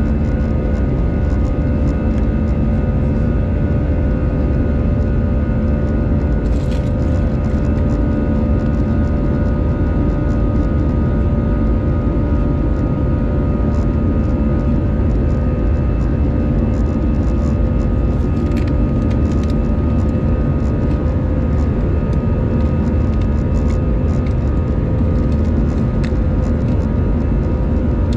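Airbus A319 jet engine and airflow heard inside the passenger cabin while climbing out after takeoff: a steady, loud rumble with several steady whining engine tones held at one pitch.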